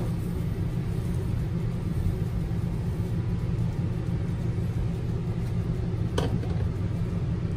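A steady low rumble from a running machine, with a single short tap about six seconds in.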